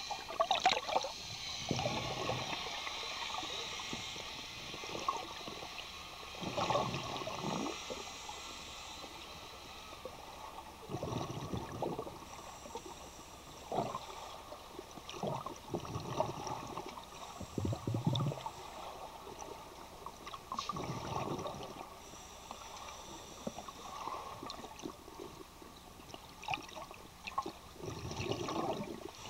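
Scuba diver breathing underwater through a regulator: bursts of gurgling exhaled bubbles every few seconds over a steady low hiss.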